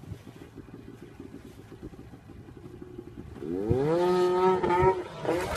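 Snowmobile engine running low, then about three and a half seconds in revving up in one rising sweep and holding high before it drops back.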